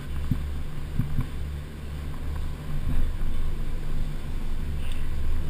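Steady low mechanical rumble of gondola lift machinery, heard from inside the cabin, with a few soft knocks about a second in.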